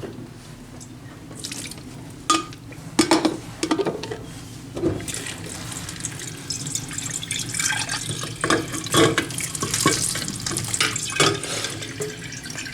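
Water running from a tap into a sink or vessel, starting about five seconds in, with clinks and knocks of dishes throughout.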